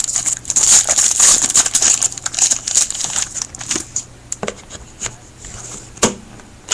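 Trading-card pack being opened by hand, its wrapper crinkling and tearing in a dense crackle for the first few seconds. The crackle thins to scattered handling clicks, with one sharper click about six seconds in.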